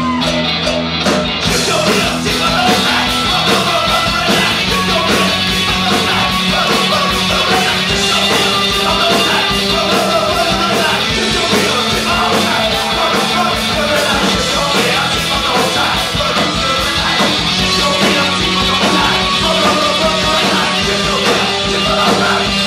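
Live rock band playing loud through a club PA: electric guitar, bass guitar and drums, with a man singing into a microphone.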